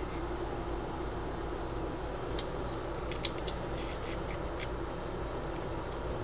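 Small metallic clicks and taps of a Glock 17 slide and a night sight being handled and fitted by hand, with two sharper clicks a little under a second apart near the middle. A steady low hum runs underneath.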